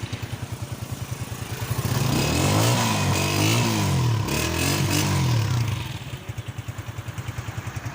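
Honda CG125's single-cylinder four-stroke engine idling with an even pulse, revved up and down a few times from about two seconds in, then settling back to idle about six seconds in.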